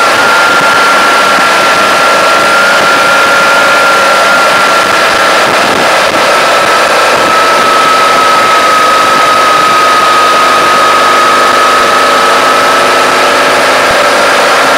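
A vehicle driving at road speed: loud, steady engine, wind and road noise with a high whine that sinks a little in pitch, then rises again near the end.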